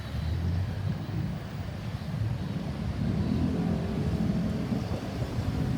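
Road traffic: vehicle engines running as a steady low rumble that grows a little louder about halfway through.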